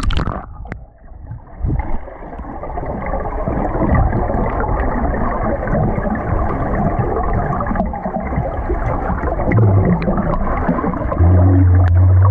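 Underwater sound from an action camera as a snorkeler dives: a muffled, steady rush of water and bubbling with scattered small clicks. Near the end comes a loud, low, steady hum while he breathes out bubbles through his snorkel.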